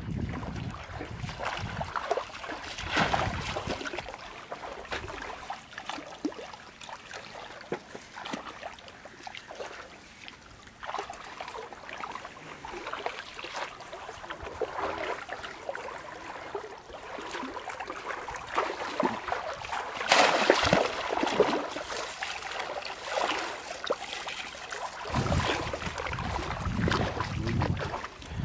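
Shallow stream water sloshing and splashing around wading legs and bamboo cone fish traps being pushed into it. The splashes are irregular, with the loudest about twenty seconds in.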